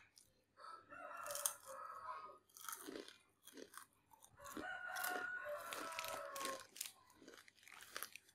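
Close-up crunching and chewing of a crisp topping from bánh tráng trộn (rice-paper salad), with repeated crackly bites. A drawn-out tonal call sounds twice over it, about a second in and again near the middle, each lasting about two seconds.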